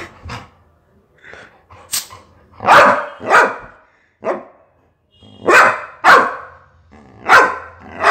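Labrador dog barking angrily: a run of about eight loud, sharp barks, most of them in quick pairs, with short pauses between.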